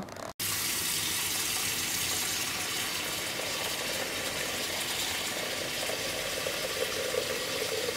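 Kitchen tap running in a steady stream into a stainless steel pot, filling it with water. The sound starts suddenly just after the beginning, and a ringing tone grows stronger over the last few seconds.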